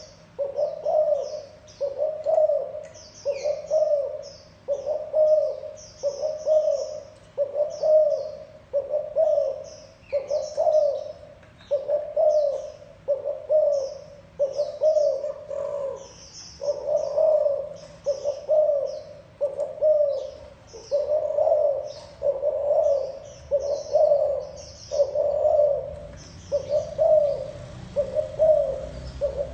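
Spotted dove (cu gáy) cooing over and over in its 'gù' call, about one coo a second, steady and evenly spaced. Small birds chirp faintly and high above it.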